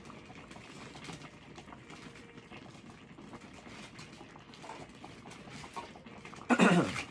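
Faint sloshing and small clinks of a metal ladle scooping broth in an earthenware hot-pot. Near the end comes a short, louder vocal sound.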